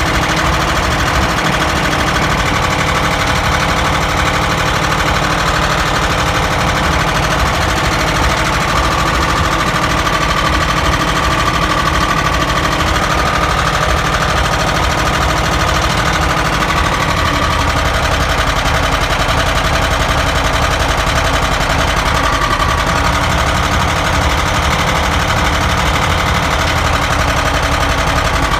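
ZAZ car engine running steadily with a rapid, even knock.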